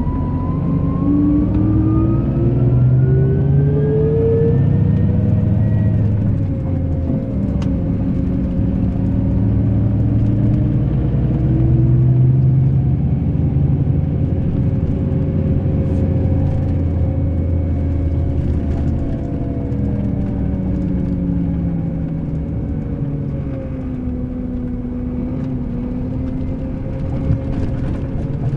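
Scania K380 IB coach engine under way. Its revs climb over the first six seconds, then drop, and rise and fall again several times, with a whine that follows the engine speed.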